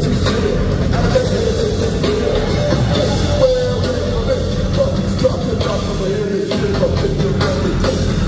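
Loud live band music through a concert PA, heard from the audience in a large hall: steady drum hits under a wavering pitched vocal or synth line.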